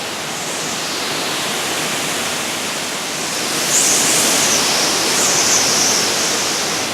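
Tropical-storm winds blowing hard in a steady rush of noise that swells into a stronger gust about halfway through, with a high wavering sound over the top during the gust.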